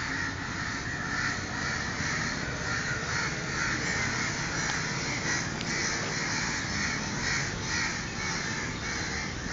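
Several crows cawing over and over in a dense, overlapping chorus.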